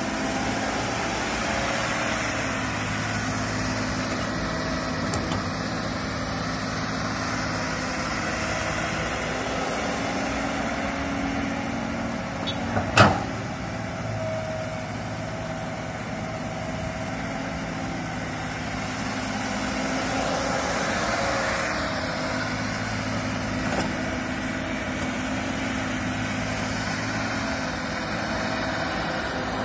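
Komatsu hydraulic excavator's diesel engine running steadily as the machine digs and swings, its note swelling a little about two-thirds of the way through. A single sharp knock stands out about halfway through.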